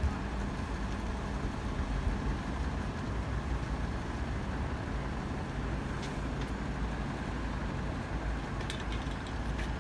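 Diesel railcar engine running steadily with a low drone, from a Class 153 diesel multiple unit.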